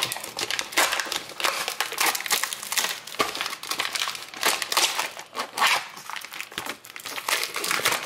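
Clear plastic packaging crinkling as hands peel it open and pull sausage patties out of it: a dense, continuous run of crackles.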